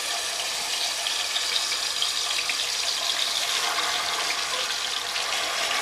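Marinated chicken pieces sizzling in hot oil as they are laid into the pan: a steady frying hiss with small scattered pops.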